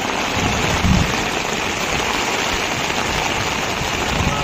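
Heavy rain pouring steadily.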